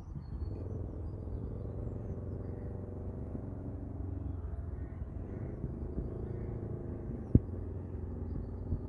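A low, steady rumble with a faint engine-like drone, and one sharp knock about seven seconds in.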